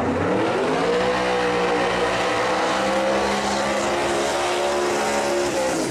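Fox-body Ford Mustang drag car doing a burnout. The engine revs up over about the first second and is held at high revs while the rear tyres spin, then stops abruptly.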